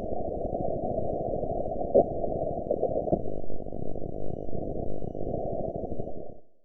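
Muffled, low rumbling noise with nothing above the low range, a couple of brief louder knocks about two and three seconds in, fading out just before the end.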